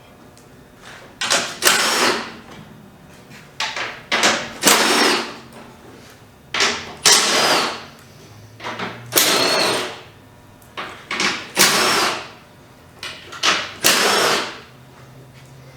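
Power tool running in six short bursts about two seconds apart, each led by a quick blip of the trigger, as bumper bolts are run out.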